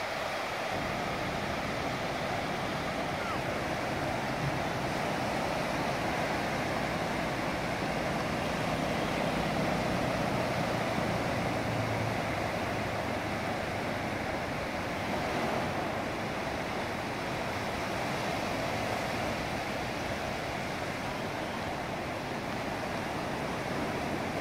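Small sea waves breaking and washing up a sandy beach: a steady, even rush of surf.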